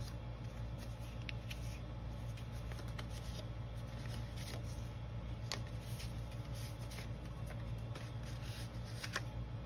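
Stiff paper journaling cards being handled and flipped through by hand: light rustling with scattered sharp ticks as the card edges knock and slide against each other, over a steady low hum.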